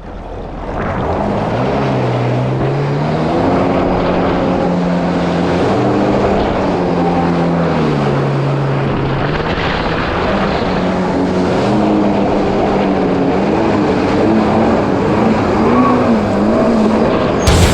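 Supercharged four-cylinder engine of a Yamaha GP1800R SVHO jet ski running under throttle, its pitch rising, holding, dipping about halfway through and climbing again, over the rush of water and wind.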